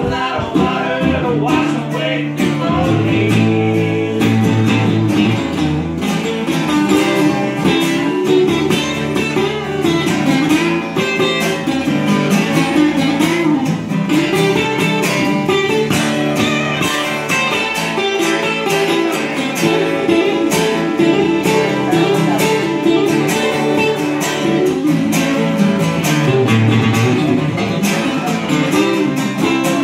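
Two acoustic guitars playing together, with picked notes and strummed chords running continuously.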